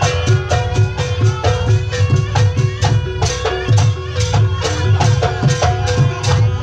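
Live jaranan ensemble music: drums and struck pitched notes in a steady, fast, repeating rhythm.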